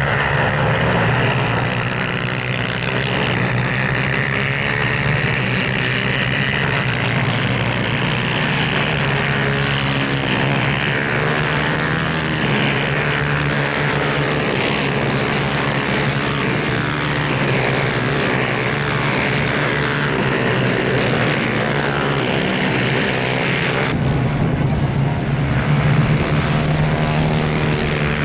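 Several 250cc two-stroke racing karts running at high revs together, a dense overlapping engine whine with many pitches sliding up and down as they accelerate and shift.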